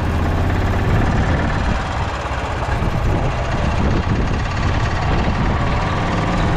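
Lifted golf cart driving along a concrete cart path: a steady low running rumble from the cart and its tyres.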